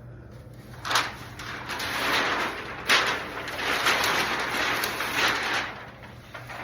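A run of long scraping strokes, each swelling and fading over about a second. Sharp knocks come about a second in and again about three seconds in.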